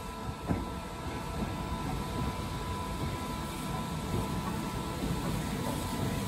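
BR Standard Class 2MT steam locomotive running slowly in along the platform: a steady low rumble that grows slightly louder as it approaches, with a single sharp click about half a second in.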